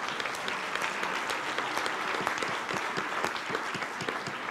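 Audience applauding: many hands clapping at once, dense and steady, thinning out near the end.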